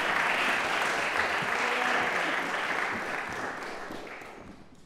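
Audience applause, fading away over the last couple of seconds.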